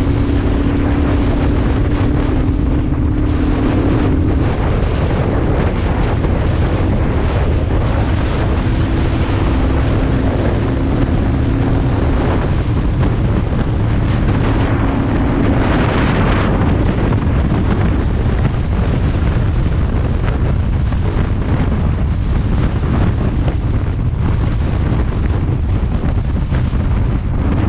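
Royal Enfield Thunderbird 350X's single-cylinder engine running on the move, mostly buried under heavy wind buffeting on the microphone. A steady hum rises above the wind a few times.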